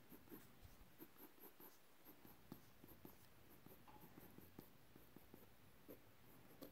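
Mechanical pencil scratching very faintly on sketchbook paper in short, irregular strokes.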